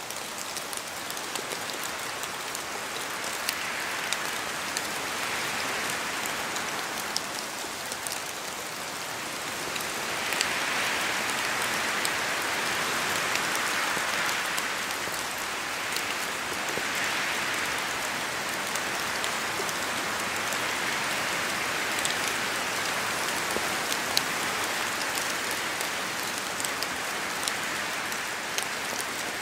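Steady rain falling in a spruce forest, with scattered drops pattering off the trees. The hiss swells and eases several times as gusts of wind move through the branches.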